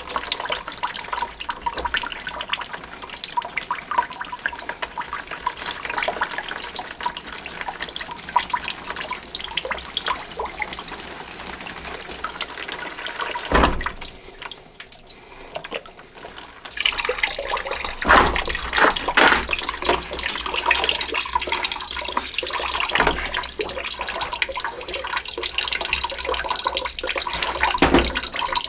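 Backed-up water from a clogged kitchen drain line running out of a loosened cleanout into a plastic bucket, splashing and trickling steadily. The flow eases about halfway through, then picks up again.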